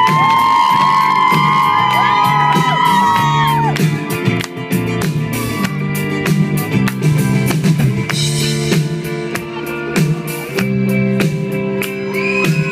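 Live band music with electric guitar, a steady beat and a singer, recorded from the audience. Long high held notes fill the first few seconds and come back near the end.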